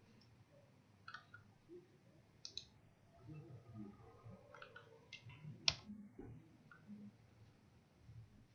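A few faint, sharp clicks from working a computer, scattered over low room noise, the loudest about two-thirds of the way through.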